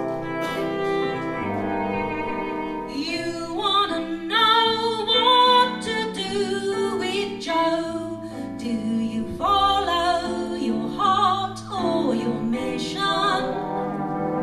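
Musical-theatre orchestral music: bowed strings hold sustained chords, and about three seconds in a high melody with vibrato comes in over them.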